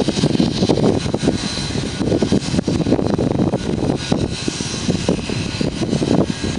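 Heritage wooden passenger carriages rolling past at close range: a steady rumble of steel wheels on the rails with dense, irregular rattling and clatter.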